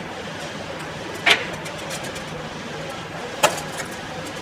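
Two sharp clicks about two seconds apart from pliers and plastic parts being handled while wiring, over a steady hum.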